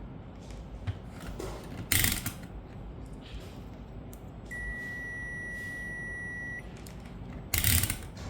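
A steady, high electronic beep lasting about two seconds, with a short clattering knock a couple of seconds before it and another just after it.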